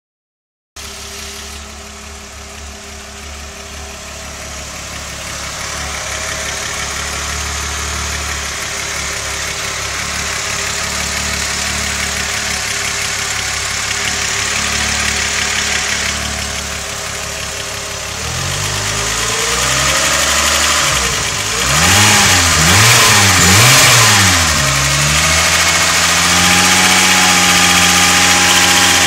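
Volkswagen VR6 narrow-angle six-cylinder engine idling with a rattle, its oil at about 70 °C. Past the middle it is revved up and down several times, then held at a steady higher speed near the end.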